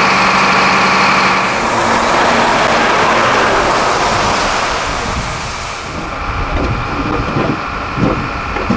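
An engine running steadily: a pitched hum over a noisy rush. The hum drops away after about a second and a half, and a few short low sounds come in over the last few seconds.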